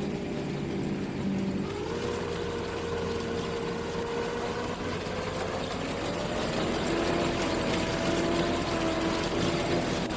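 Combine harvester running steadily, its engine and machinery drone with a steady hum that steps up slightly in pitch about two seconds in and creeps higher again later.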